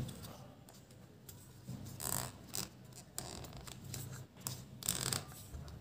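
Faint handling sounds of plastic syringes being pushed and twisted into holes in a foam board: soft scraping and rustling, with short louder scrapes about two seconds in and again near the end.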